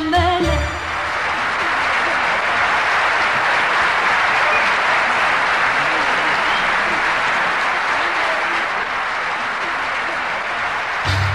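Audience applauding steadily for about ten seconds as a sung phrase ends at the start; the orchestra comes back in near the end.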